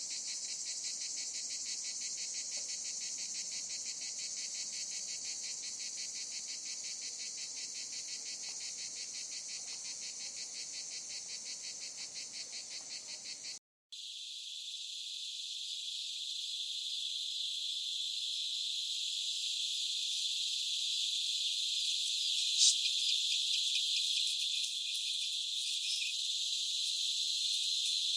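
Cicadas singing: first a high, rapidly pulsing buzz, then, after a short break about fourteen seconds in, a denser, steadier high chorus of cicadas that slowly grows louder, with one brief click about two-thirds of the way through.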